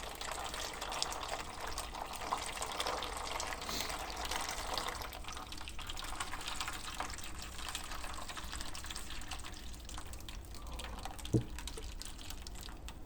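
Water being poured into a humidifier's water tank, a steady filling splash that thins out about ten seconds in, with one short knock shortly after.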